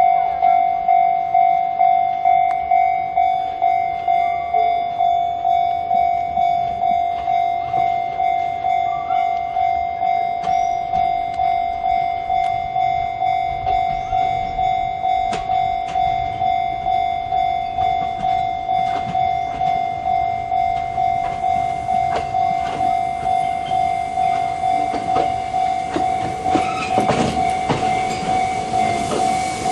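Japanese level-crossing warning alarm with the electronic 'Chichibu' tone, ringing in a steady pulse about twice a second. From about two-thirds of the way in, an approaching train's running and wheel noise grows louder, with wheel clicks over the rail joints near the end.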